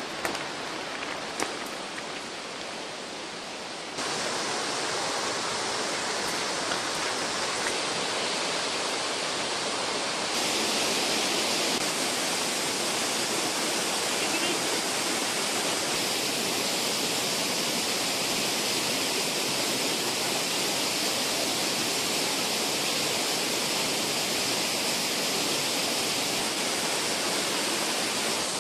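Steady rushing of a large waterfall, the Pliva falls at Jajce. It steps up in level about four seconds in and again about ten seconds in, with a few light clicks in the first seconds.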